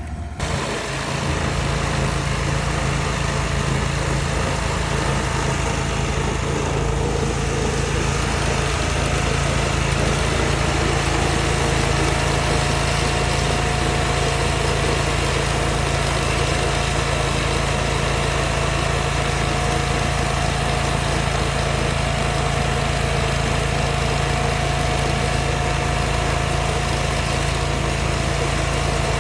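A small engine running steadily at an even, unchanging speed.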